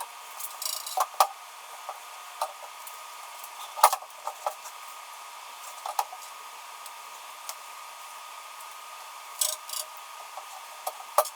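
Scattered metallic clicks and knocks as a motorcycle sissy bar is handled and offered up to the bike for a test fit, the loudest about four seconds in. Underneath is a steady fan whir from a garage space heater.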